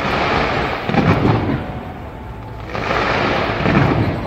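Fireworks going off in a dense, continuous barrage of bangs, swelling loudest twice: about a second in and again near the end.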